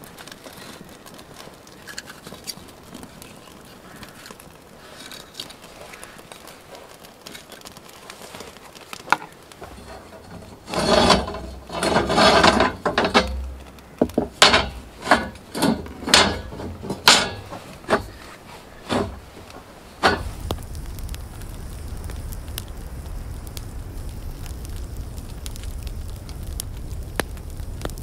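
Cast-iron grill grates scraped across and set down on a concrete barbecue table, followed by a run of about eight sharp metal clanks as they knock into place. Before that a small kindling fire crackles faintly, and about two-thirds of the way through the sound changes abruptly to the steady low rush of the wood fire burning.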